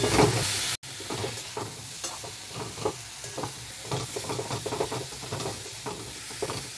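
Pumpkin pieces sizzling in oil in a metal wok (kadai) as they are sautéed with spices, while a spatula stirs them with frequent short scraping strokes, two or three a second. The louder first second breaks off abruptly at an edit.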